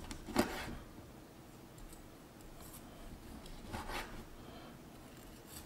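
Chef's knife slicing through a seared steak's peppery crust onto a wooden cutting board: two short cutting scrapes, the first about half a second in and louder, the second a little before the four-second mark.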